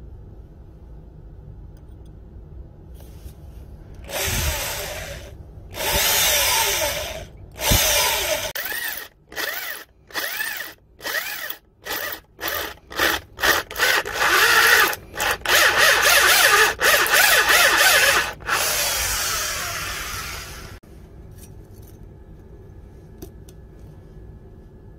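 Power drill with a hole cutter boring through 5160 spring steel under cutting fluid. The cutting starts a few seconds in, in runs of a second or two, then comes in many short bursts, then a longer steady run that stops suddenly near the end.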